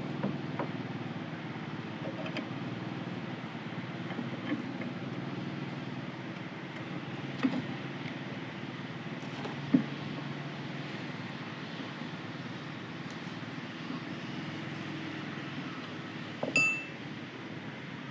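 Occasional sharp metal clinks and knocks, a few seconds apart, as a car wheel is pulled off its hub and handled, over a steady low hum. A short high squeak near the end.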